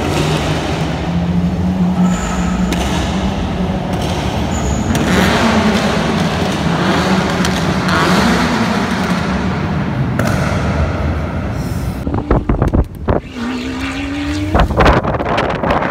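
Lamborghini Aventador LP700-4's V12 through an ARMYTRIX header-back valvetronic exhaust, driving up through a multi-storey car park with the engine note rising and falling a little. About twelve seconds in, wind buffets the microphone, and a rising engine note follows a second or so later.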